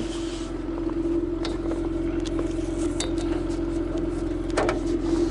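Homemade karakat all-terrain vehicle's engine idling steadily, with a few light knocks and clinks over it.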